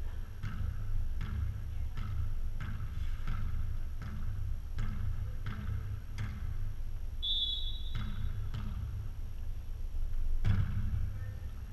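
A volleyball bounced on the gym floor about every 0.7 seconds, with a short high-pitched squeal about two-thirds of the way through. Near the end comes one louder smack as the serve is struck.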